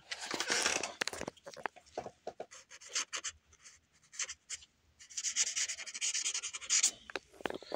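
Black pen scratching across sketchpad paper: a burst of strokes at the start, scattered short strokes and light taps in the middle, then a denser run of scratching from about five to seven seconds in.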